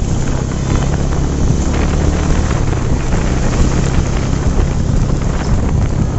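Wind buffeting the microphone of a moving motorcycle, with the engine's steady low hum underneath.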